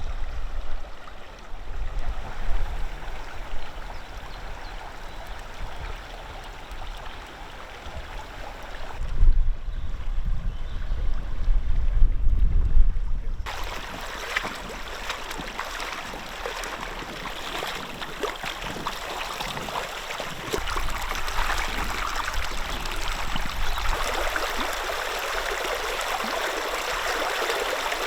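River water rushing steadily, with a low rumble underneath in the first half. About halfway through it changes abruptly to a brighter, hissier rush.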